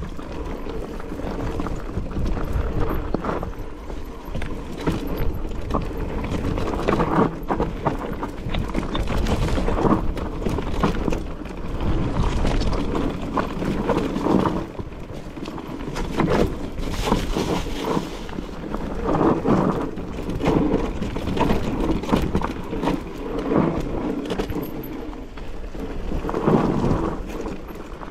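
Mountain bike riding over a rough trail: a continuous rumble with frequent knocks and rattles.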